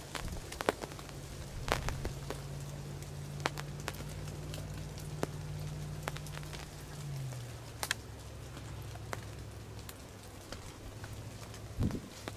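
Raindrops tapping irregularly on the fabric of a hunting ground blind over a steady hiss of rain. A low steady hum runs underneath and drops in pitch about seven seconds in.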